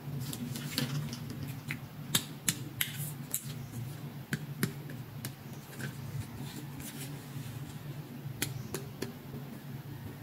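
Light, scattered clicks and taps of a small plastic toy hand mirror being picked up and handled, over a low steady hum.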